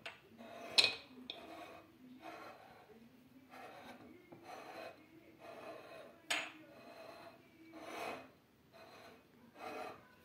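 Ceramic plate scraping on a countertop as it is turned in short pushes, about one stroke a second, with a few sharp clicks along the way.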